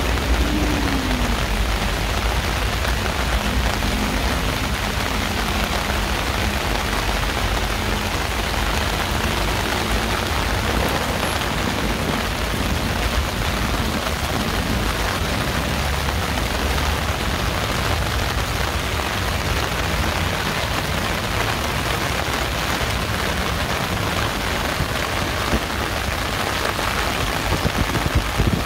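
Heavy downpour falling steadily: a dense, even hiss of rain with a low rumble beneath it.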